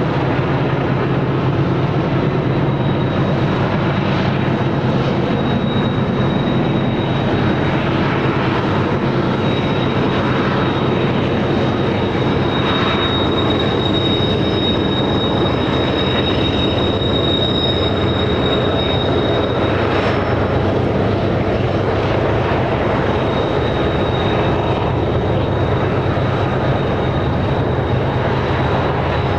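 Freight train cars rolling steadily around a tight curve, a continuous low rumble with a high wheel squeal that comes and goes, strongest about halfway through.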